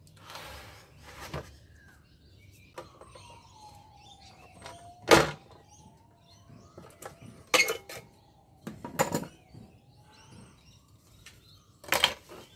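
Knocks and clatter of metal and plastic parts as a Fronius solar inverter is taken apart by hand and with pliers: a few sharp, separate knocks, the loudest about five seconds in and another near the end, with quieter handling noise between.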